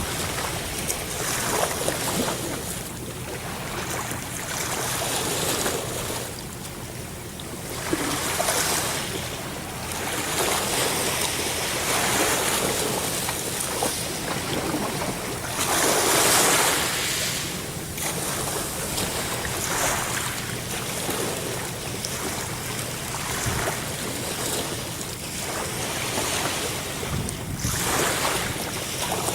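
Ocean waves breaking and washing on a shore, swelling and falling every few seconds, with the largest surge about halfway through. Wind buffets the microphone throughout.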